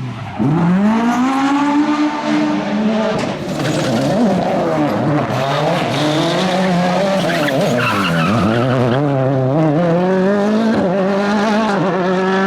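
Rally car engines revving hard. The pitch climbs and drops sharply again and again as the cars go up through the gears, with more than one engine heard at once in places.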